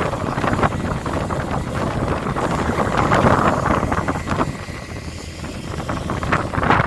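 A fishing vessel's engine running steadily at sea, with wind buffeting the microphone and scattered knocks on deck.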